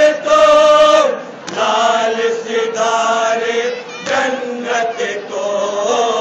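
Men chanting a slow, melodic chant, one voice leading, with long held notes broken by short pauses.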